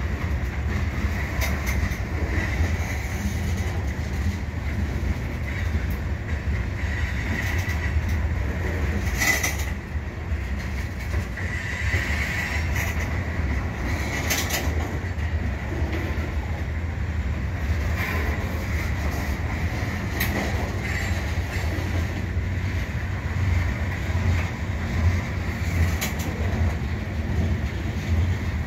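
Freight train of covered hopper cars rolling past: a steady low rumble of steel wheels on rail. A faint wheel squeal swells and fades, and a couple of sharp clanks come in the middle.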